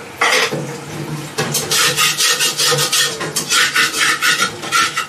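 Fresh jackfruit being torn apart by hand, bulbs and sticky fibres ripped from the core in a series of quick rasping tears, several a second.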